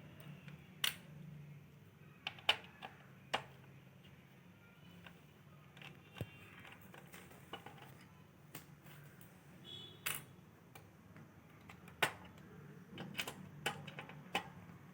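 Small sharp clicks and taps of a screwdriver working the screws out of a laptop's heat sink, a dozen or so at irregular intervals, some in quick clusters.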